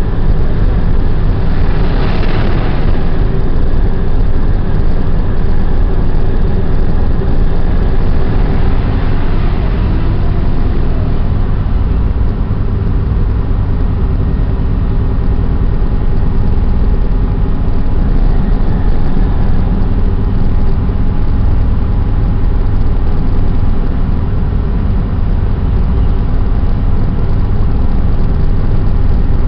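Steady, loud low rumble of a ship's machinery with a faint continuous hum over it, and a brief rush of noise about two seconds in.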